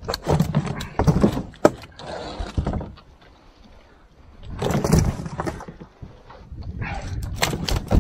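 Catfish flopping and being dropped on the metal floor of a boat: a run of wet knocks and slaps, a lull about three seconds in, then more knocking near the end.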